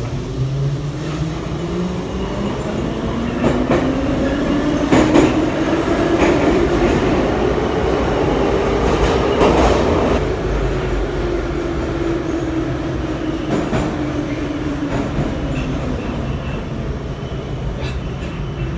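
Em-501-series Soviet metro car running between stations, heard from inside the car: a steady rumble, with a motor whine that rises in pitch as the train gathers speed and falls away as it slows for the next station. Several sharp knocks come from the wheels on the rails, the loudest about five and nine seconds in.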